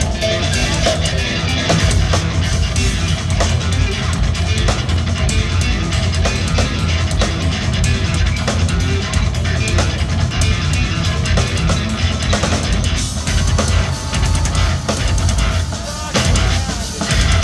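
Live instrumental progressive metal played loud: distorted electric guitar over a rock drum kit with heavy kick drum, heard from the audience through the venue's PA.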